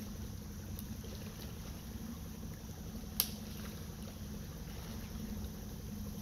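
Quiet outdoor background noise with a faint steady low hum and one sharp click about three seconds in. The chainsaw is not running.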